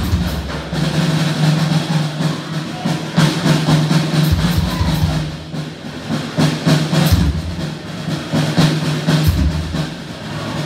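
A drum kit played solo: fast strokes around the drums with cymbal hits, broken up by a few deep bass-drum thumps about four, seven and nine seconds in.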